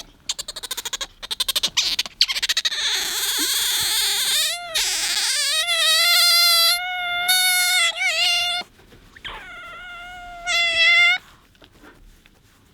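Asian small-clawed otter squeaking for attention: a rapid run of chirps, then high, drawn-out whistling squeals, some held for two or three seconds at a steady pitch.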